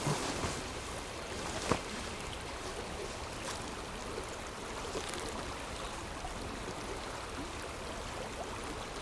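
Steady rush of flowing river water, with one sharp click a little under two seconds in.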